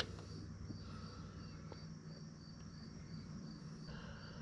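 A cricket chirping steadily, about three chirps a second, over a faint low hum, with a few faint clicks as a wrench snugs up an engine drain plug.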